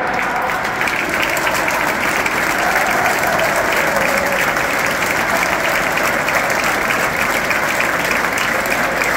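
Large stadium crowd applauding, a dense, steady clapping that fills the stands.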